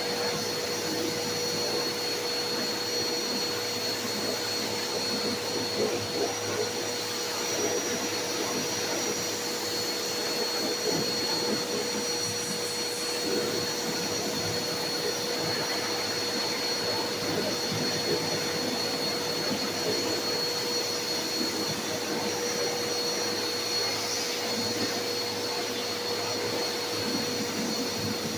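Small pressure washer running steadily: its pump motor whines at one pitch under the hiss of the water spray, rinsing bug-remover solution off a car's front bumper.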